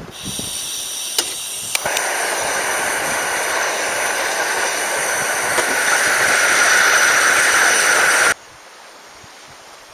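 A loud, steady hiss that grows fuller and louder about two seconds in, then cuts off abruptly near the end.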